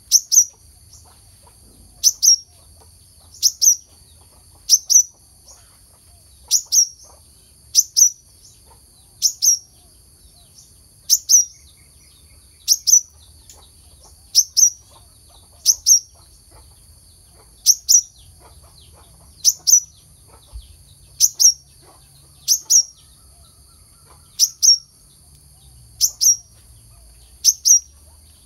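Brown-throated sunbird (kelicap mayang kelapa) calling: a sharp, high chip that falls steeply in pitch, repeated about every one and a half seconds, sometimes doubled, over a steady high hiss.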